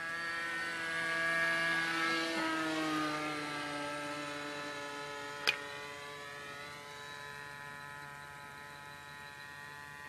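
Nitro (glow-fuel) engine of an R/C SeaMaster float plane running in flight, a steady buzz that drops in pitch a couple of seconds in as the plane passes and then slowly fades as it flies away. A single sharp click about halfway through.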